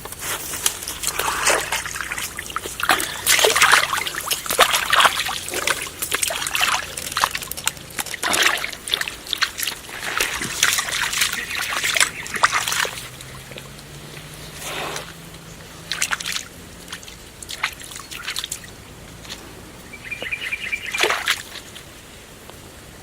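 Water splashing and sloshing in irregular bursts, busy for the first dozen seconds or so and then only now and again.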